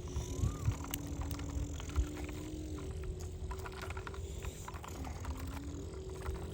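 Small electric motors of a homemade toy excavator and truck whining at a few held pitches that step up and down, with clicking and rattling from the gears.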